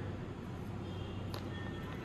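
Steady low hum with faint, thin tones over it, and one light click just over a second in.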